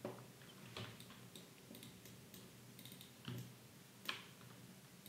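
Faint, scattered clicks of a computer mouse and keyboard, a few sharp taps spread through a few seconds.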